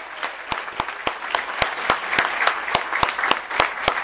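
Audience applauding, with one pair of hands clapping loud and close at a steady pace of nearly four claps a second over the crowd's clapping.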